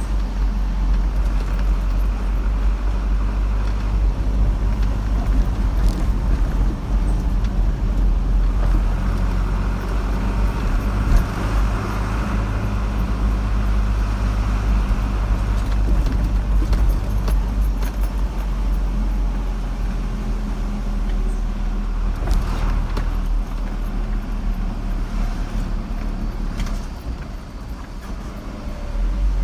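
Car driving along a road: steady engine and tyre noise with a continuous low hum, easing a little near the end.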